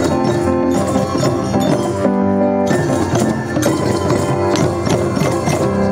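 A children's ensemble of hand drums and pitched percussion playing, with sharp drum strokes over steady ringing notes.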